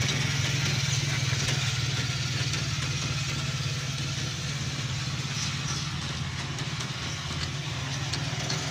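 Small motor vehicle engine, likely a motorcycle, running steadily at a low, even hum over a constant hiss.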